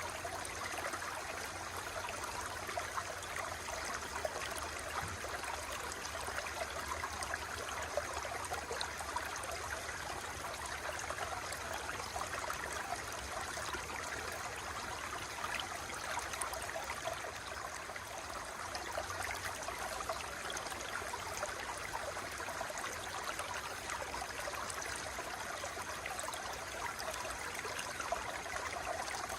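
Water flowing steadily, a continuous rushing with fine splashing flicker.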